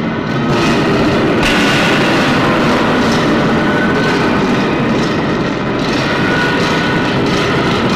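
A loud, steady mechanical rumble with a few faint held tones over it.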